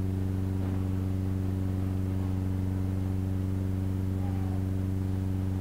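Steady low electrical hum with a row of evenly spaced overtones, unchanging throughout.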